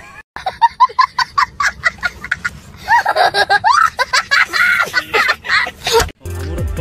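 A child laughing hard in a long run of loud, high-pitched, cackling bursts. Hip hop music starts near the end.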